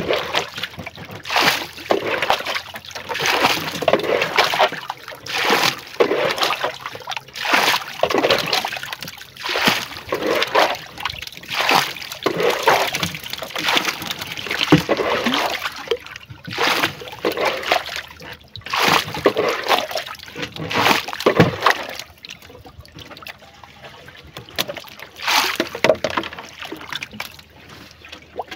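Water sloshing and splashing from a cut-open plastic jerrycan fish trap held over the side of a canoe, in repeated surges about a second apart. The splashing turns quieter after about twenty-two seconds as the trap goes back into the river.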